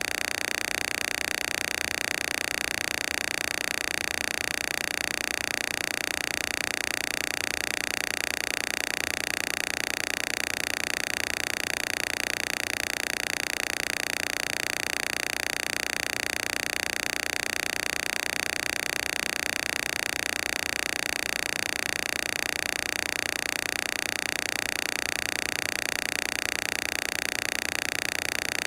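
Synthesized PC Zapper sound frequencies played as one steady, unchanging electronic tone with a hissy edge, strongest in the upper-middle range, without breaks or changes.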